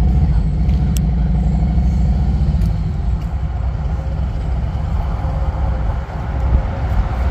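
Low engine rumble of passing road traffic, heaviest for the first two and a half seconds and then lighter.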